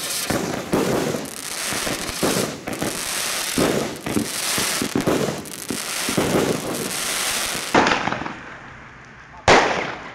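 Two 'Party in a Box' fireworks firing together: a dense, steady run of bangs and crackling star bursts. About eight seconds in this gives way to a quieter stretch, then a different firework lets off a sharp bang near the end.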